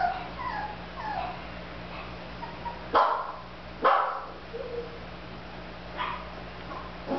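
Zuchon puppies whimpering and yipping: a run of short, falling whines, then two sharp barks about a second apart near the middle, and a few more short yips after.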